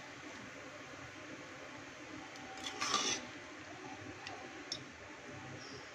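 A metal spoon stirring rice and liquid in a pressure cooker, with a louder scrape against the pot about three seconds in and a few light clicks after it, over a steady low hiss.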